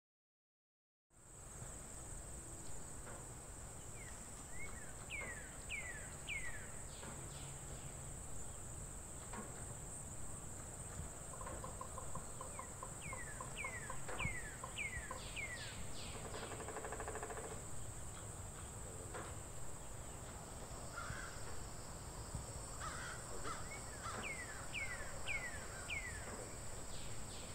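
Faint wild-field nature ambience that starts about a second in: a steady high insect drone, with birds calling in runs of three or four quick chirps that fall in pitch, heard three times. Near the middle come a short rapid rattle of notes and a harsh, buzzy call.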